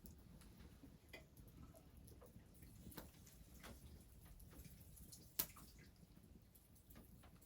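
A few sharp, isolated clicks or pops at irregular intervals over near silence, the loudest about five seconds in.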